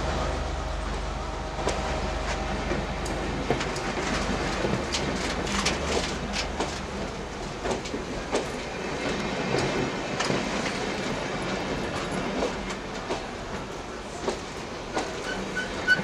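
Passenger train pulling out of a station, its coaches rolling past close by with a rattle of wheel clicks and knocks over the rails. A low rumble fades away over the first few seconds, and there are brief high squeals near the end.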